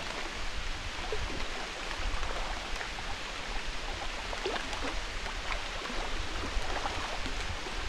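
Feet and walking staffs sloshing through shallow floodwater, with scattered small splashes over a steady watery hiss and a low rumble.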